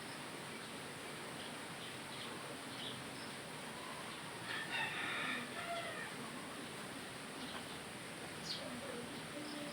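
A bird calling once for about a second, roughly halfway through, over a steady background hiss.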